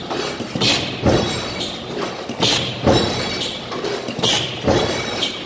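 Cincinnati mechanical squaring shear making three quick strokes in a row, each one a pair of heavy metallic clunks as the blade drops and returns, about every two seconds.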